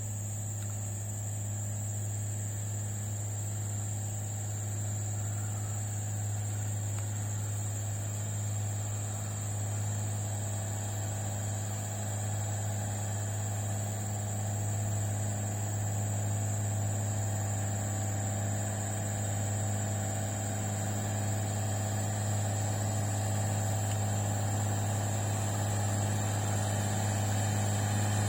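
Heavy diesel truck engine, a UD Quester, running steadily under load while climbing, a low even drone that grows slowly louder.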